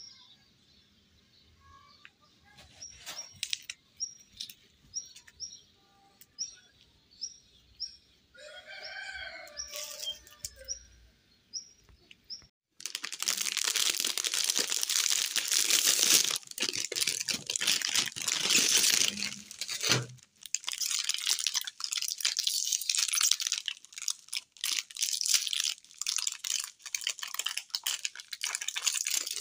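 A small bird chirps over and over, short high chirps a little more than once a second. Then, about halfway in, the foil-lined wrapper of a pack of chocolate-coated biscuits is torn open and crinkled by hand, a loud, continuous crackling.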